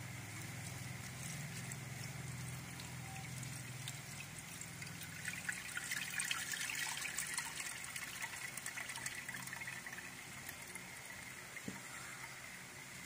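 Miracle fruit juice poured from a pot through a cloth strainer into a container below, trickling. The pour swells about five seconds in, is strongest for a few seconds, then eases to a dribble. A low steady hum runs underneath for the first few seconds.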